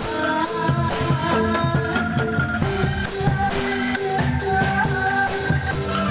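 Live bamboo angklung band playing an instrumental tune: short repeated notes from struck bamboo tubes over hand drums and a drum kit with cymbals.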